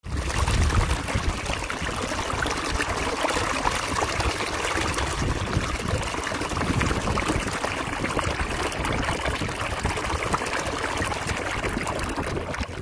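Water gushing and splashing out of an open pop-up drainage emitter at the end of a buried drain line, its lid pushed up by the flow. It runs at a steady rate, with water splashing onto the wet ground around it.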